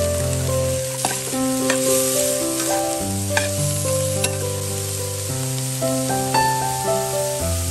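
Snails stir-frying in a wide metal pan, sizzling steadily, while a metal spoon scrapes and clicks against the pan several times. Soft background music of held chords runs underneath.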